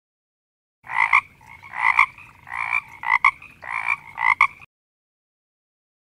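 Frog croaking: a run of about six croaks, roughly one every two-thirds of a second, that stops suddenly.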